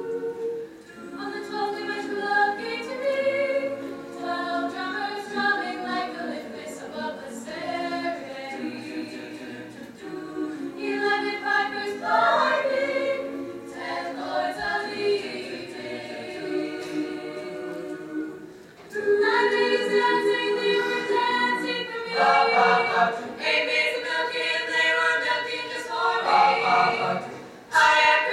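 Mixed-voice a cappella ensemble singing in close harmony, with no instruments, growing louder and fuller about two-thirds of the way through.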